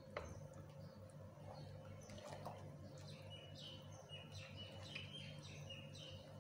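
A wooden spoon knocks once against a pot of milk being stirred. About halfway in, faint, quick bird chirps start repeating over a low steady hum.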